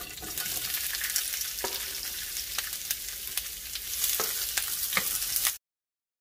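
Sliced red and green bell peppers sizzling as they hit hot oil in a frying pan, with a few sharp ticks of a wooden spatula pushing them off a cutting board and stirring. The sizzle cuts off abruptly near the end.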